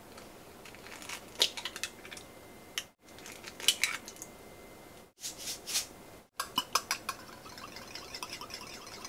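Eggs cracked against a small glass bowl, a few sharp taps and clicks, then beaten with a wire whisk: a fast run of clinking against the glass from about six seconds in.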